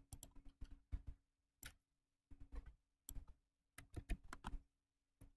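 Faint, irregular clicks and ticks from a computer mouse and keyboard, coming in small clusters, over a faint steady hum.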